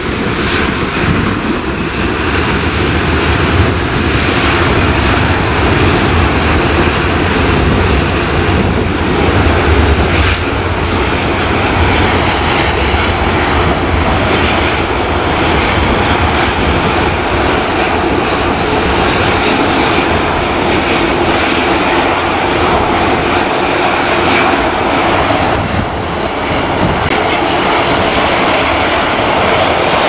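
Jet aircraft engines at take-off power, a steady loud noise as the jet rolls down the runway and climbs away, with gusty wind buffeting the microphone.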